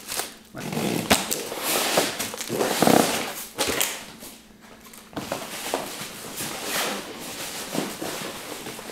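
Styrofoam packing and a cardboard shipping box scraping and crackling as the packed exercise bike is pulled out, with irregular knocks and rustles. The sound eases off about four seconds in, then picks up again.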